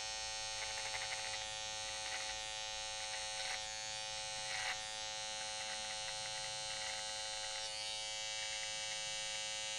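Cordless metal-bodied hair trimmer running with a steady buzz as its blade cuts a beard's cheek line, with a few brief crackles in the first five seconds as it bites into the hair.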